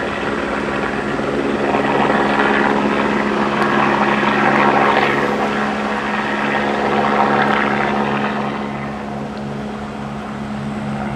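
A steady engine drone with a low pulsing hum, under a noisy rush that swells and fades about three times and eases toward the end.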